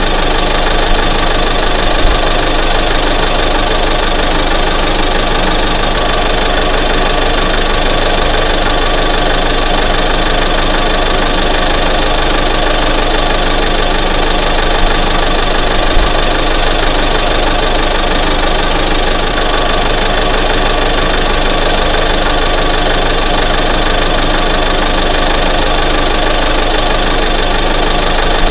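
1988 Ford F-150 pickup truck engine running steadily.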